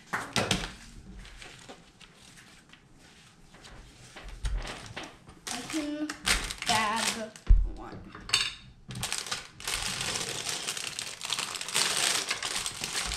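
Lego pieces clicking and rattling on a wooden table, with a thump about seven and a half seconds in. In the last few seconds a plastic bag of Lego bricks is crinkled as it is handled. A brief voice is heard midway.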